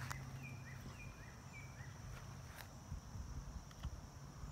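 Quiet pondside ambience: a bird's short whistled notes, each rising and then holding, three or four of them in the first two seconds. A few faint clicks come over a steady low hum.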